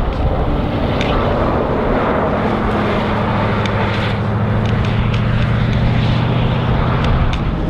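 Bugatti Veyron's quad-turbocharged W16 engine driving past and pulling away: a rushing noise that settles into a steady engine note about two seconds in, with a few sharp ticks over it.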